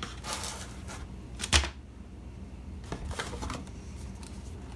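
Unboxing handling of a Raspberry Pi starter kit's parts and packaging: rustling and light clicks, with one sharp click about a second and a half in.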